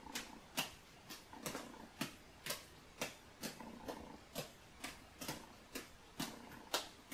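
Three juggling balls being caught and thrown in a column pattern: soft slaps of the balls landing in the hands, in a steady rhythm of about two a second.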